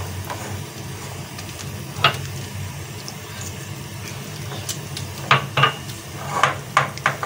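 Wire whisk stirring gram-flour batter and clinking against the side of a ceramic bowl: one sharp knock about two seconds in, then a quick run of clinks near the end.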